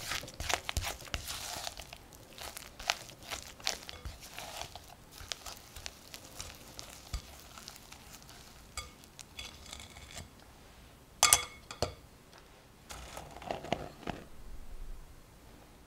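A spatula stirring and scraping a soft creamed butter-and-egg mixture around a glass mixing bowl, with quick sticky scrapes and clicks. About eleven seconds in there is a sharp clink, the loudest sound, then a metal mesh sieve is shaken as flour is sifted into the bowl.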